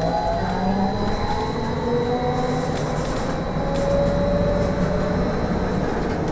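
Trolleybus electric traction drive running while the trolleybus drives along, heard from inside the cabin. Its whine has several tones that rise slowly over the first couple of seconds and then hold level, over steady low road rumble and a constant high thin tone.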